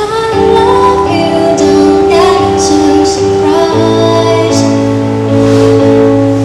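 A female voice singing a slow melody with long held notes over instrumental accompaniment.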